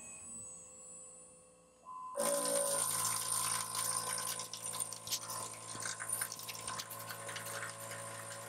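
CNC mill spindle spinning a homemade fly cutter at 3500 RPM, a quiet steady whine at first. About two seconds in the cutter enters the work and a loud, rough hissing cut with a steady hum sets in and holds: a 0.020-inch-deep, 2.5-inch-wide facing pass fed at 60 inches per minute.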